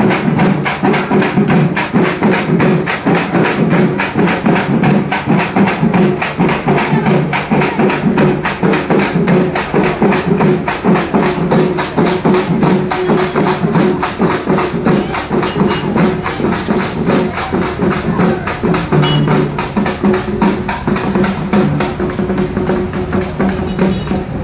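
A troupe of drummers beating large side-slung drums in a fast, dense, unbroken rhythm, with a steady tone sounding beneath the beat.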